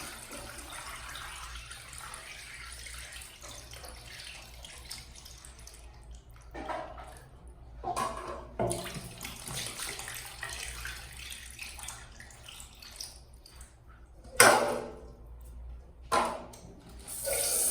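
Water running from a kitchen tap into a sink, with a few clinks and clatters and one loud, sharp knock about fourteen and a half seconds in.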